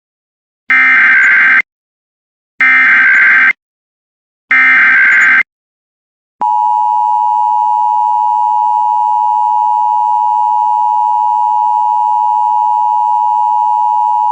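Emergency Alert System header: three bursts of SAME digital data tones about a second each, with short gaps between. Then the EAS attention signal, a steady two-tone sound of 853 and 960 Hz held for about eight seconds and cut off sharply, signalling an emergency bulletin about to be read.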